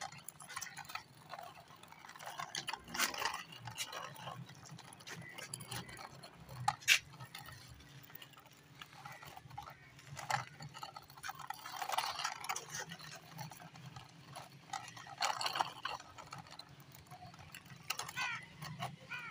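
Small plastic toy vehicle pushed by hand over rough concrete, its plastic wheels and body clattering and scraping in irregular clicks, with one sharp knock about seven seconds in.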